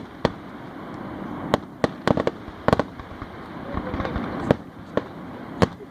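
Fireworks going off: sharp bangs at irregular intervals, several in quick succession about two seconds in and a loud one near the end.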